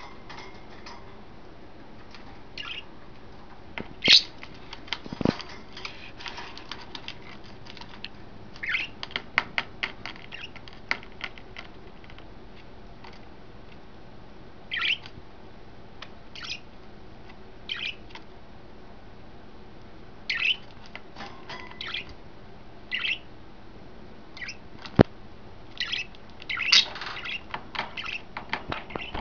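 Pet budgerigars chirping and giving short squawks on and off, with a few sharp taps and clicks among the calls.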